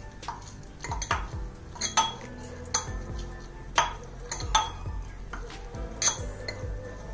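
Metal muddler crushing lemon slices and mint leaves in a glass, knocking against the bottom of the glass about once a second to press out the juice for a mojito.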